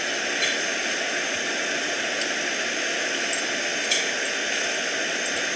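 Steady background hiss with a couple of faint ticks, one about half a second in and one near four seconds.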